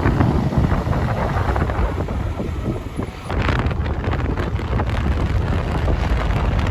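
Loud wind buffeting the microphone, a low rumbling roar that dips briefly about three seconds in.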